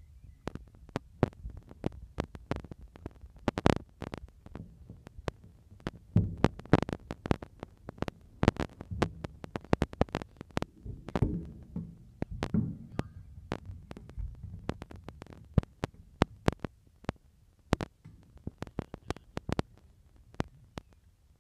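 Wind buffeting the microphone: a low rumble broken by many irregular loud pops and crackles.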